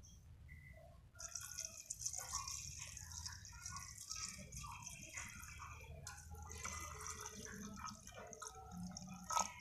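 Water pouring in a steady stream into a metal pot onto raw chicken pieces, onion and chilli, starting about a second in. A short sharp click near the end.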